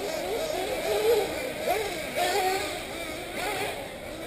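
Several 1/8-scale nitro buggy engines racing at once, their high-pitched whine rising and falling as the cars accelerate and brake around the track.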